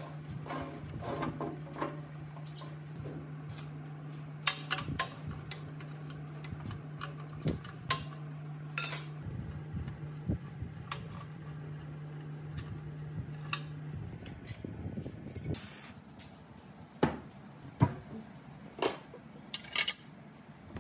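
Scattered metallic clinks and taps of a spanner and steel fittings being worked on an old air compressor, over a steady low hum that stops about two-thirds of the way through.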